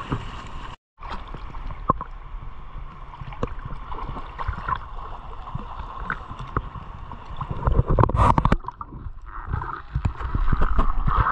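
Seawater sloshing and gurgling around the camera in shallow water, with scattered small knocks. There is a louder rush of water about eight seconds in.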